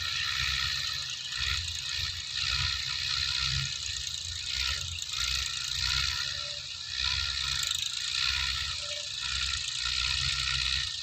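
Massey Ferguson 185 tractor's four-cylinder diesel running under load as it pulls a rotary tiller through the field, with a steady mechanical clatter. Wind buffets the microphone in uneven gusts.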